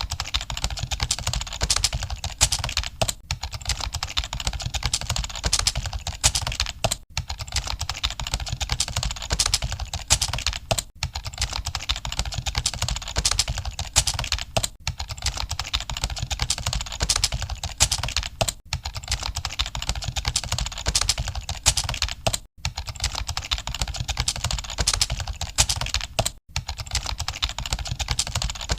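Fast, continuous typing on a computer keyboard, keys clicking in rapid runs with a brief pause about every four seconds.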